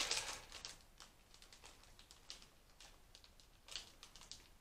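Plastic snack wrappers crinkling and rustling as they are handled, in short faint crackles, louder in the first half-second and again a little before four seconds in.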